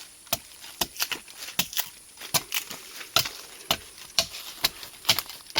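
Repeated chopping strokes of a blade into wood, about two a second at an uneven pace.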